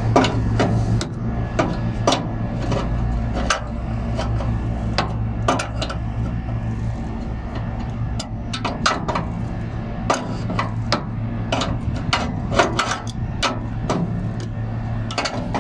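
Irregular metallic clicks and taps of a wrench working the tension-adjusting bolt on an AC blower motor's sliding base, turned clockwise to tighten a loose drive belt. A steady low machinery hum runs underneath.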